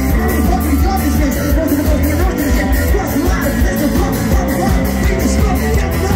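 A live rock band playing loud through a PA, with vocals into a microphone over drums and electric guitar and a steady, regular drumbeat.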